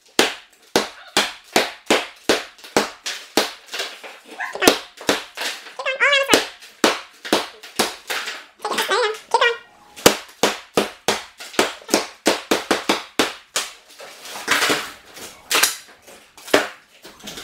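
Hammer blows knocking out a bathroom wall and tile, a fast irregular run of sharp strikes about two to three a second. A couple of short high voice-like sounds come in between.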